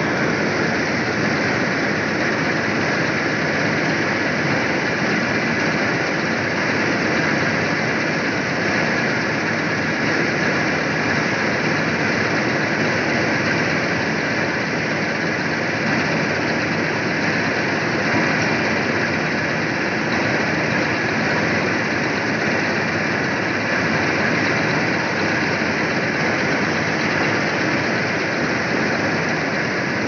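Preet 987 combine harvester cutting wheat: engine and harvesting machinery running steadily under load.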